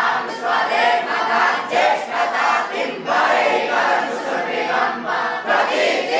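A group of voices chanting Sanskrit mantras together, loud and continuous, in short phrases with brief breaks between them.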